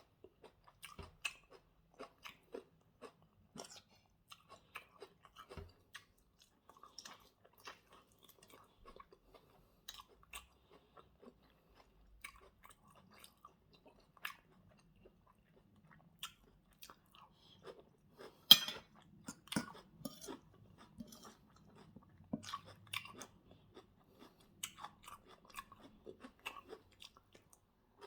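Close-miked chewing and crunching of chicken wings and salad: a steady run of short, wet, crisp mouth sounds, with one much louder sharp crunch about two-thirds of the way through.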